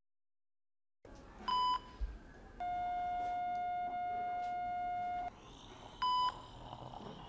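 Electronic beeps: a short high beep, then a long, lower steady tone lasting nearly three seconds, then another short high beep near the end.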